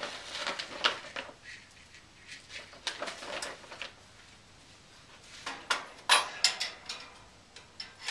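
Bird food being put into a cage's food bowl: bursts of small clicks and rattles, in three separate spells.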